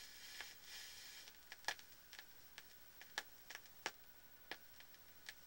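Faint, irregular sharp clicks and ticks, roughly one or two a second, over a low hiss.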